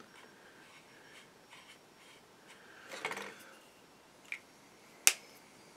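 Small hobby tools being handled and set down on a workbench: a short rustle about three seconds in, a light tick, then a sharp click about five seconds in.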